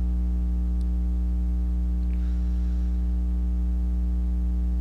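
Steady electrical mains hum with a stack of overtones, a constant low buzz in the recording with nothing else of note.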